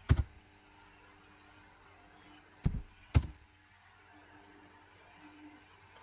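Three sharp thumps of computer keyboard keys being struck: one just after the start, then two about half a second apart a little later, as a distance is typed and entered.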